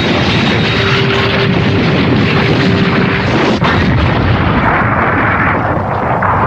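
Animated explosion sound effects: a loud, continuous roar of blasts and rumbling, with a steady hum beneath it for the first half and sudden shifts about three and a half seconds in and near the end.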